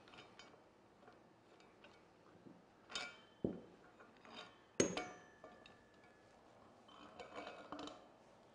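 Metal parts of a threaded-rod bearing installer clinking and knocking as they are taken off a motorcycle wheel hub: a few separate knocks, the loudest about five seconds in with a short metallic ring, then a cluster of lighter clinks near the end.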